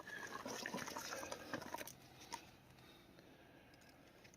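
Faint scraping and small metallic clicks of parts being handled during a driveshaft U-joint job, busiest in the first two seconds, then only a few scattered clicks.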